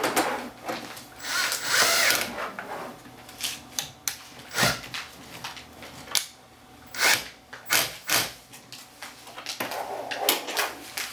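A power drill running in short bursts, with sharp clicks and knocks of metal hardware between them.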